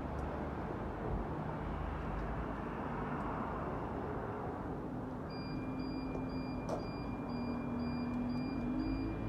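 Steady outdoor urban ambience with the hum of road traffic. From about five seconds in, a run of short high beeps comes about twice a second, along with a low engine drone that rises slightly near the end.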